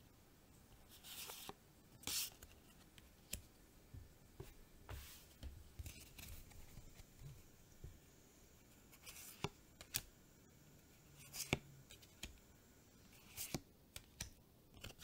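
Magic: The Gathering trading cards handled in the hands: soft swishes as cards slide past one another, each moved from the front of the stack to the back, with a few sharp light clicks as card edges tap together. Quiet and close up.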